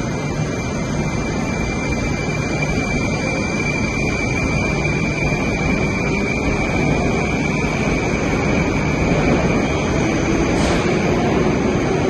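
Steady, loud noise of a metro train on an underground station platform, with a thin high whine held through most of it; the noise swells a little toward the end.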